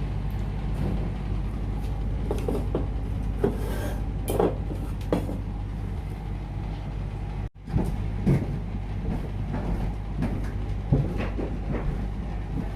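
Eating sounds: scattered light clicks and knocks of utensils on a plate, and chewing, over a steady low hum. The sound cuts out for a moment about halfway.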